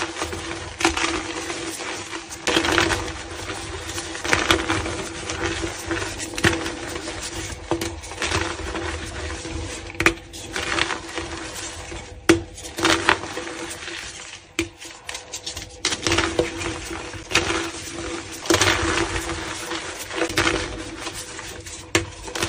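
Blocks of reformed gym chalk being crushed by hand: irregular dry crunches and crumbling as the pressed chalk cracks and breaks apart into loose powder.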